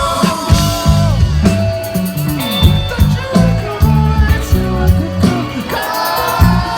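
Rock band playing live: an instrumental stretch with drums, bass and guitar over a steady beat.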